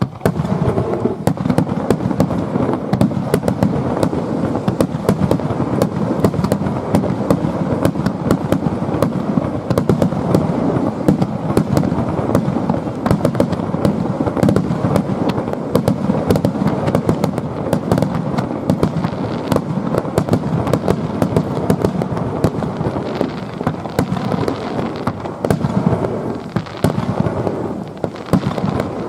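Aerial fireworks display: a dense, continuous barrage of shell bursts, the sharp reports and crackle overlapping without pause. It sets in suddenly at the start.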